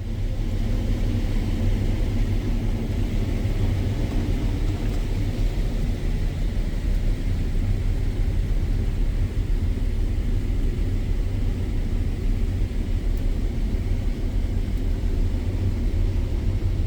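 Heavy diesel farm machinery engine running steadily: a constant low rumble.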